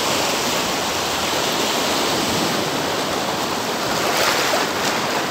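Choppy sea water splashing and rushing in a steady hiss, with a slightly louder splash about four seconds in.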